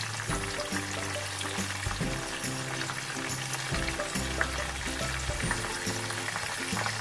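Onion, spice and yogurt masala sizzling steadily in oil in a pan, under background music with a low bass line.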